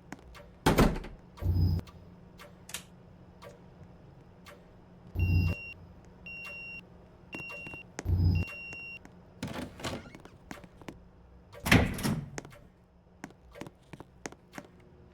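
A series of thuds and knocks, like handling or a door, the loudest near the end. Between them comes a run of four short electronic beeps about a second apart.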